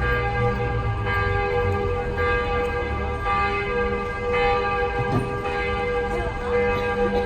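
The bells of Notre-Dame de Paris cathedral pealing, several bells ringing together with their tones overlapping and a fresh strike about once a second.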